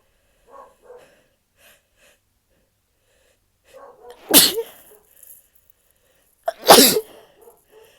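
A young woman's induced sneezes: two loud sneezes about two and a half seconds apart, in the second half, each preceded by faint catching breaths.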